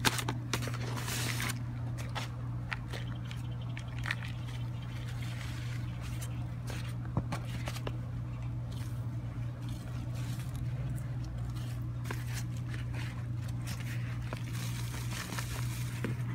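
Loose soil mix of peat moss, manure and compost being handled and poured from a bucket into a planting hole: irregular crunching and scraping rustles with scattered clicks, over a steady low hum.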